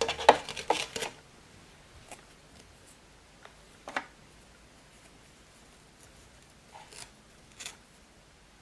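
Clear acrylic cutting plates clicking and scraping as the cutting sandwich is taken apart, a quick cluster of sharp clicks in the first second. Then a few faint taps and rustles as the cut felt is handled and lifted out of the die.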